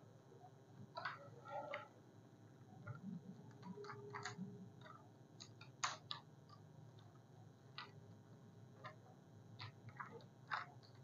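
Faint, scattered squeaks and rubs of a bare hand wiping marker writing off a whiteboard, a dozen or so short strokes, over a low steady hum.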